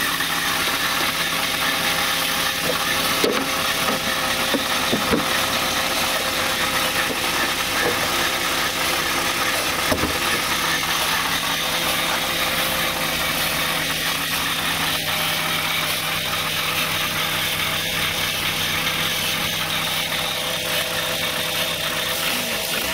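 Chevrolet Beretta's 2.2-litre four-cylinder engine idling steadily in its first minute after a cold start, heard close up under the open hood.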